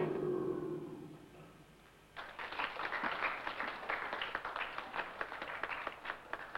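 A death metal band's final chord rings out on electric guitar and fades away. After a brief lull, scattered audience clapping starts about two seconds in and carries on.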